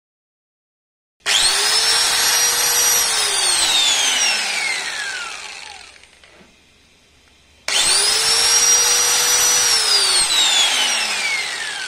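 Makita angle grinder motor run twice with no disc fitted, in a test run after reassembly. Each time it spins up quickly to a steady high whine, runs for a second or two, then is switched off and winds down in a long falling whine. The first start comes about a second in and the second about eight seconds in.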